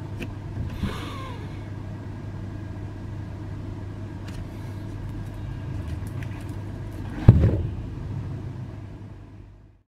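A steady low rumble of background noise, with a single loud thump about seven seconds in; the sound fades out shortly before the end.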